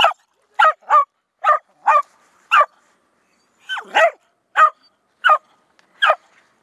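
A dog barking in short, sharp single barks, about ten in all, with a brief pause about three seconds in.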